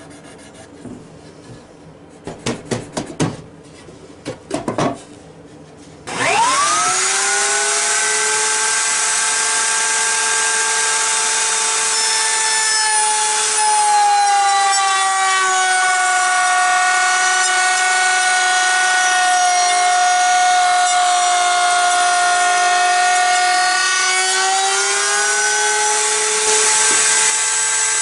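A few knocks, then a benchtop router table's motor switches on about six seconds in and spins up to a steady high whine. From about halfway the pitch sags slightly as the bit cuts a recess for the box bottom into a southern yellow pine board, and rises again near the end as the cut comes off.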